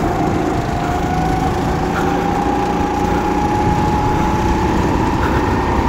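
Go-kart engine running at high revs, its pitch climbing slowly and steadily as the kart accelerates, heard from onboard the kart.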